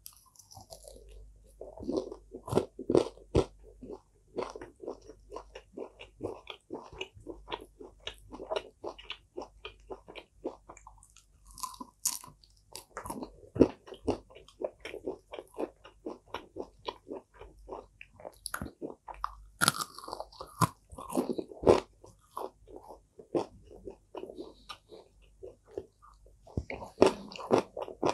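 Close-miked crunching bites and chewing of crispy fried pork with a crunchy coating: a dense run of sharp crunches, with several louder bites now and then.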